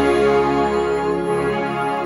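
A school concert band playing sustained chords together.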